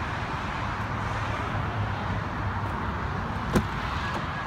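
Fiat 500 Abarth's turbocharged four-cylinder idling steadily, heard from behind at the exhaust tips. A single sharp click comes about three and a half seconds in, and near the end a car's door-open chime starts beeping.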